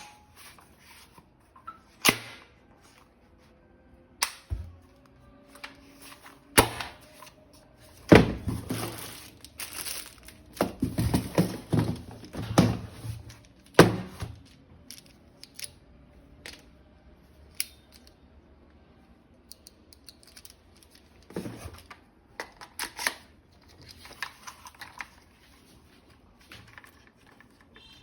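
Unboxing handling noise: plastic packaging crinkling and tearing, with irregular clicks and knocks of plastic toy gun parts, busiest in the middle. Faint background music underneath.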